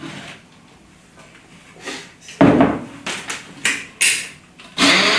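A few knocks and clatters of cartons and a pot being moved on a wooden board, then about a second before the end an immersion blender switches on and runs steadily with a constant hum, starting to purée blanched green peas with cream and milk.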